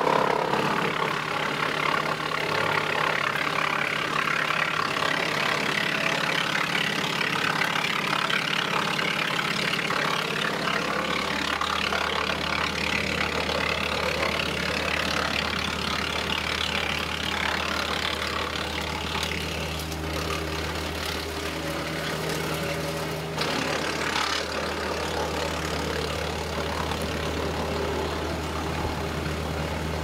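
Woodland Mills WC46 PTO-driven wood chipper running off a compact tractor while chipping fed branches: a steady machine drone from the tractor engine and spinning flywheel, with a rough grinding rasp of wood being cut. A deeper hum sets in about ten seconds in, and there are a few short sharp cracks a little past two-thirds of the way through.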